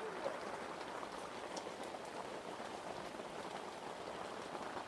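Steady rain falling, a continuous even patter.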